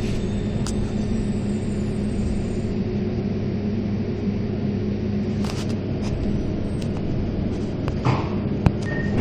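Metro train running, a steady low rumble heard from inside the carriage, with a few light knocks in the second half.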